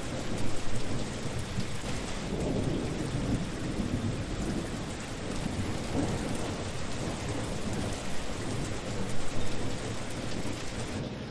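Steady rain falling, an even hiss with deeper rumbling swells now and then underneath.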